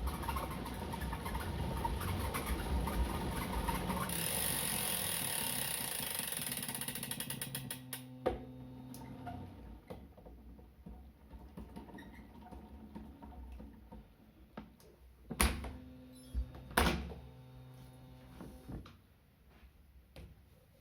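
Bicycle drivetrain on an Elite Suito-T direct-drive smart trainer running with fast ratchet-like ticking, typical of a freehub freewheeling. It stops at about eight seconds, leaving a faint low hum and a few sharp knocks.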